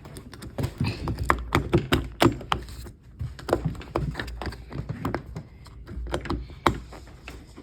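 Metal door-lock parts being handled and pushed into place: irregular clicks and taps, several a second.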